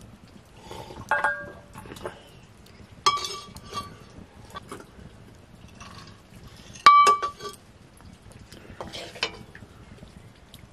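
Steel ladle clinking against a steel plate and pot while cooked grain is served, a handful of sharp metallic clinks with short ringing. The loudest clink comes about seven seconds in.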